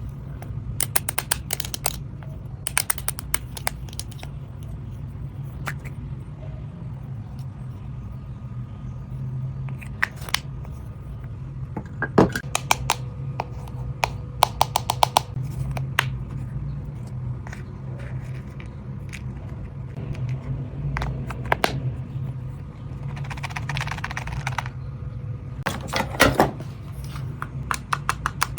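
Stationery items and packaging being handled: clusters of rapid clicks and taps, several times, with a short rustle or scrape near the end, over a steady low hum.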